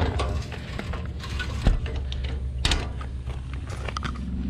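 Metal paddle latch on a truck service-body compartment door worked by hand, giving sharp metallic clacks, the two loudest about a second apart.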